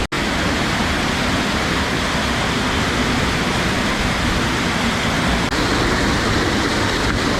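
A waterfall's steady rush of falling water, with a split-second cut-out right at the start.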